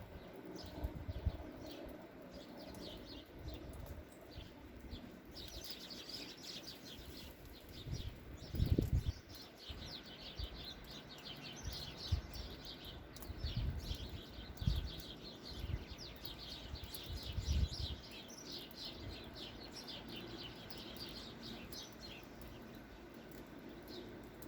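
Small birds chirping in a rapid, continuous twitter, busiest through the middle of the stretch, with a few low thuds now and then.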